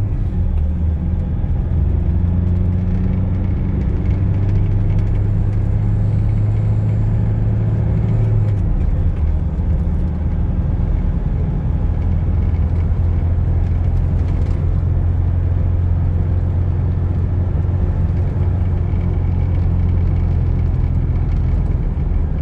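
Inside the cab of a 2008 Toyota Hilux 2.5 turbodiesel pickup at about 80 km/h: a steady low rumble of engine, tyres and drivetrain, with the engine pitch climbing for the first several seconds, dropping about eight seconds in, then holding steady. Within the drone is a wheel-bearing noise at 80 km/h, which the mechanic ties to the same fault as the truck's heavy vibration at 50 km/h.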